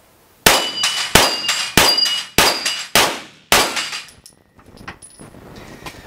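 Six pistol shots from a Glock about 0.6 s apart, most followed by the ringing of struck steel plates on a six-plate rack. One of the six shots misses. Near the end there are only faint small clicks.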